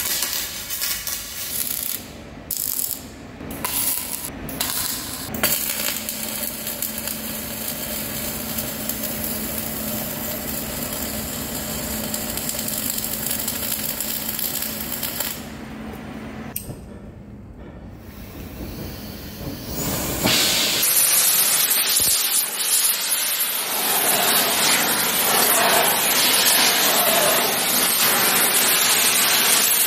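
Metalworking sounds in a fabrication shop. First come a few short knocks and clatters, then a long stretch of steady machine noise with a low hum that stops about halfway through. About two-thirds of the way in, a loud, even hiss begins and runs on.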